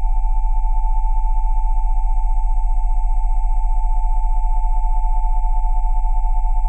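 Steady electronic sine tones at 727, 787 and 880 Hz layered over a deep 20 Hz tone, held unchanged, with a fast even throb in loudness.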